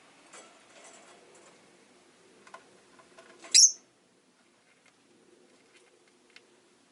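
Rosy-faced lovebird giving one short, sharp, high-pitched chirp about three and a half seconds in, amid faint scattered clicks and taps.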